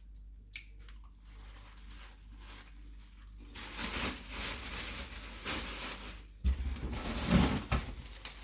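Plastic packaging crinkling and rustling as a bag of dried food is handled and opened. It starts about three and a half seconds in, after a few faint clicks.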